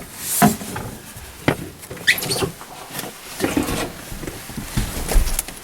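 Irregular light knocks, clicks and scrapes from handling material by hand, with a short squeak about two seconds in.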